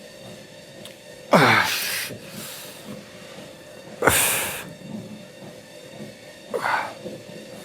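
A man breathing out hard three times, roughly two and a half seconds apart, the first with a voiced grunt falling in pitch: effortful exhales with each lift.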